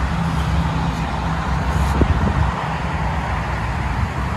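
Steady traffic noise: a vehicle engine's low hum over a broad hiss, the hum fading about halfway through, with two faint ticks around the middle.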